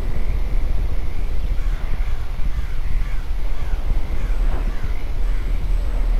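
Crows cawing in a run of short, falling calls, about two a second, over a steady low rumble of spooky ambience.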